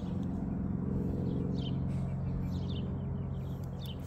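Steady low hum of a nearby vehicle engine running, with a few short bird chirps over it.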